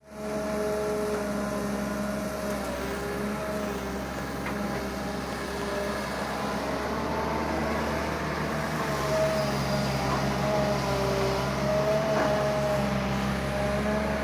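Excavator's diesel engine running steadily while digging soil, with a whine that drifts up and down in pitch over the engine drone.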